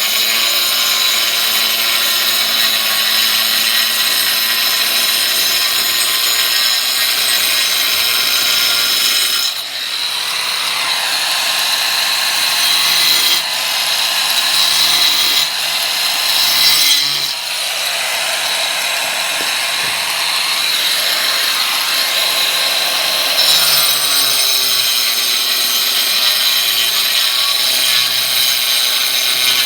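A power tool cutting on a building site, a steady high-pitched whine over grinding noise that shifts in tone about ten seconds in and again near the end, as the load on the cut changes.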